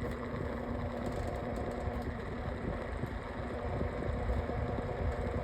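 Lasko Windstorm 18-inch pedestal fan running on medium speed with a steady abnormal buzzing vibration noise over a low rumble. The owner wonders whether the noise comes from the motor.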